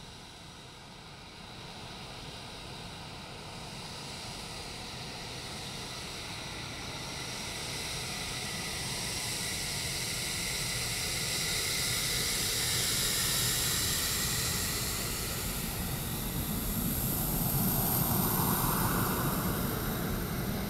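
Twin-engine F-15-type fighter jet taxiing past, its jet engines whining with a steady high tone over a rushing noise. The sound grows louder as the jet approaches and passes, then swells again near the end.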